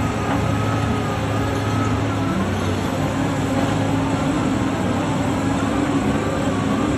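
Heavy construction machinery running steadily: a low engine drone with a fainter higher tone wavering above it.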